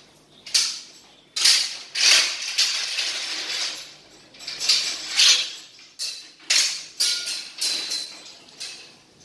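Steel swing frame and its hanging chain clanking and rattling as the seat is handled: about a dozen sharp metallic clanks, some ringing briefly.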